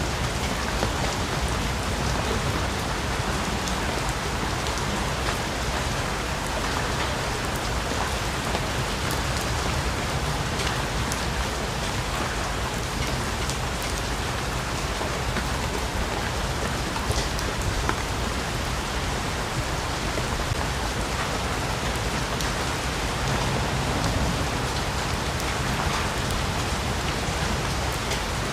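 Steady heavy rain falling on foliage, with scattered individual drops ticking through the even hiss.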